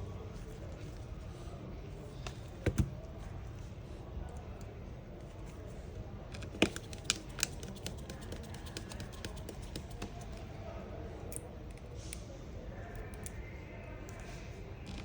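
Small, sharp clicks and taps of a precision screwdriver and tiny screws against a smartphone's internal frame during reassembly: a quick pair about three seconds in, then three louder clicks between about six and a half and seven and a half seconds, with fainter ticks in between, over a steady low background hum.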